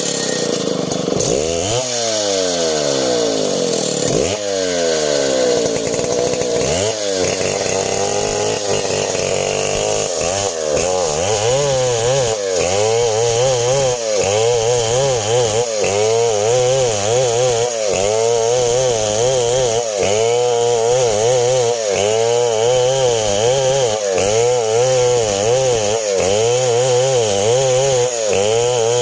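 STIHL 070 two-stroke chainsaw, loud, revving up and down in long sweeps in the first several seconds, then running steadily under load with its pitch wavering rhythmically as it cuts through coconut-palm wood.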